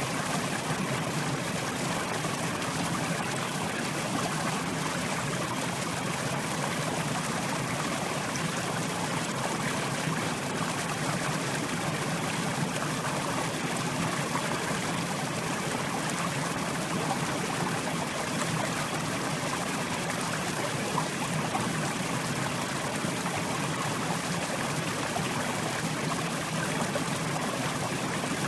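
Mountain river flowing over rocks: a steady rush of running water that doesn't change.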